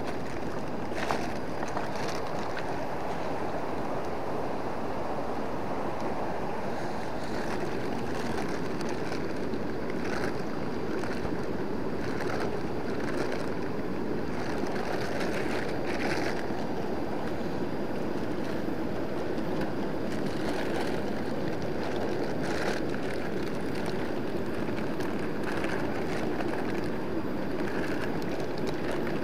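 Steady rushing of a swollen river running high and fast in flood, with a few faint ticks over it.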